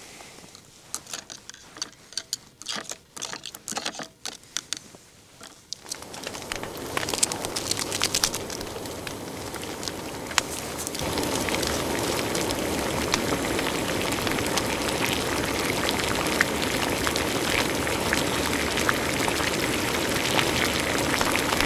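Fire burning in a camping brazier: a steady hiss with scattered crackles that starts about six seconds in and gets louder again about five seconds later. Before it come light, scattered clicks and taps.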